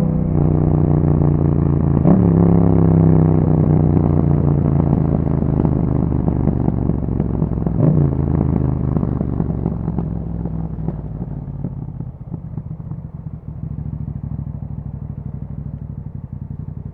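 2021 Yamaha MT-07's parallel-twin engine through an Akrapovic exhaust, running under way with two short rev blips, about two and eight seconds in. It then slows and settles to a low, steady idle for the last few seconds.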